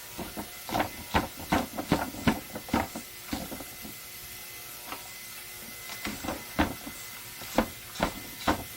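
A wrench clicking as the ignition coil's mounting bolts on a riding mower are tightened: two runs of sharp clicks, about two to three a second, with a pause between them, over a steady hiss.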